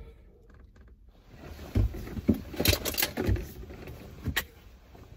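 Plastic bottle being handled and its cap twisted: a run of clicks, crackles and knocks lasting about two seconds, starting a little before halfway, with one more knock about a second later.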